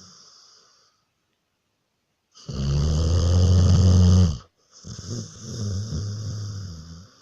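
Dog snoring in its sleep: a long, loud snore about two and a half seconds in, then another right after it, following a short quiet pause.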